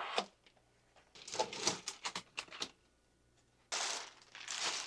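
Clear plastic packaging bag crinkling and rustling as it is handled, in a few short crackly bursts, then a longer rustle near the end.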